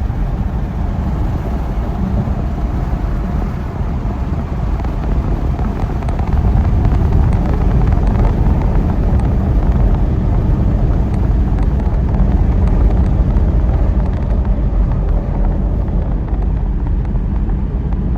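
Steady rumble and hiss of a car driving, a little louder from about six seconds in.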